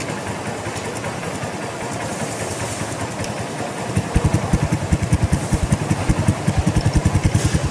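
Honda CG 150 Sport's single-cylinder engine idling through a Roncar Coyote 2Way exhaust with its butterfly valve closed, on the quiet setting. About four seconds in the valve is opened and the idle turns into a louder, even run of strong low exhaust pulses: the sport setting.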